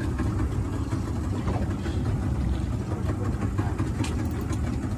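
Small fishing boat's motor running steadily at low trolling speed, a continuous low rumble.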